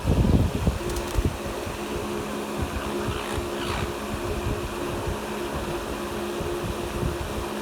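Steady mechanical hum like a running fan, with two faint low tones that keep breaking off and coming back.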